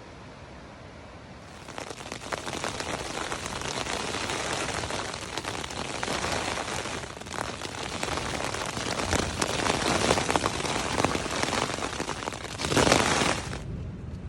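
Heavy rain falling on a backpacking tent's fabric during a night thunderstorm, a dense crackle of drops. It comes in about a second and a half in, grows heavier and surges loudest near the end before easing.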